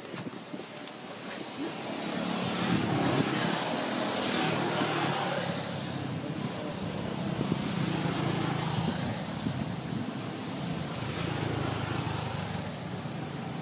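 A steady engine drone that swells in over the first few seconds, holds, and eases a little near the end.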